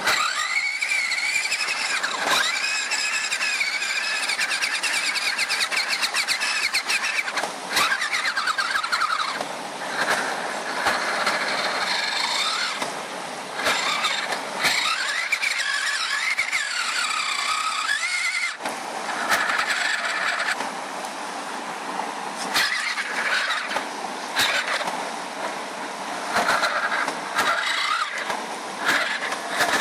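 Electric motor and gearbox of a converted Radio Shack Off Roader RC crawler whining, the pitch rising and falling with the throttle and cutting out and resuming several times. Sharp clicks and knocks come through as the truck climbs over rocks.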